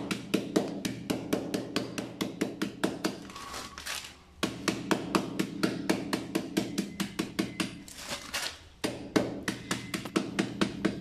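Oreo biscuits in a plastic bag being pounded into crumbs on a granite countertop: quick, even knocks about four a second, with a short break about four seconds in and another about eight seconds in.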